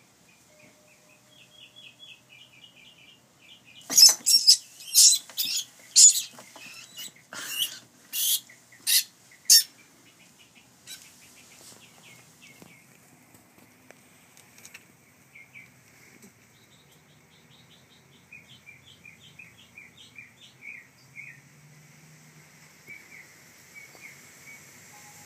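A gopher snake seizing and constricting a rat in a plastic tub. About four seconds in comes a run of about ten loud, harsh, hiss-like bursts over some six seconds as the two struggle, then only faint rustling. Small high chirps carry on in the background.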